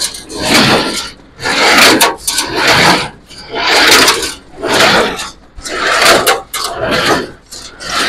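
New Holland 273 square baler running empty, its feeder tine carriage swinging back and forth: a rhythmic rasping, rubbing clatter about once a second. It is running smoothly without knocking, the carriage's worn wear blocks freshly shimmed.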